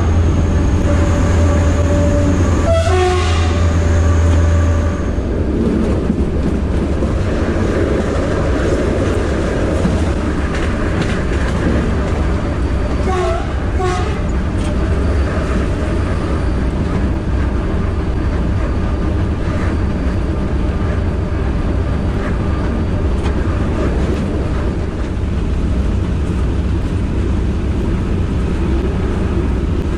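SNCF BB 67400 diesel locomotive heard from inside its driving cab, with the engine running and continuous wheel-and-rail rumble at speed. A strong low hum drops away about five seconds in. Brief high tones sound around three seconds in and again near fourteen seconds.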